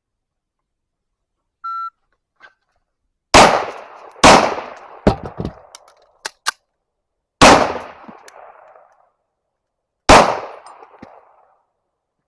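A shot-timer start beep, then four pistol shots from a compensated Springfield Echelon, unevenly spaced with long pauses before the third and fourth. Fainter sharp clicks and knocks fall between shots. The pauses come from the trigger going dead on reset: the Powder River trigger is failing to reset.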